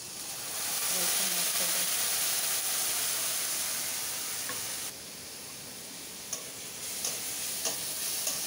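Ginger-garlic masala paste poured into hot oil in a steel kadai, sizzling loudly as it hits the oil; about five seconds in the sizzle drops suddenly to a quieter, steady frying hiss. Near the end a few sharp taps of a metal spatula stirring against the pan.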